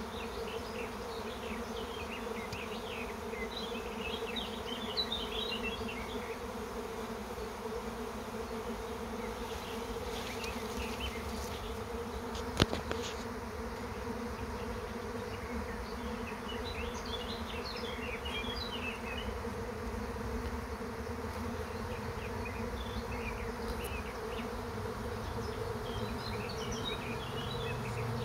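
A honeybee swarm in flight: the steady, dense hum of thousands of bees leaving the hive with the old queen to find a new home. A single sharp click about halfway through.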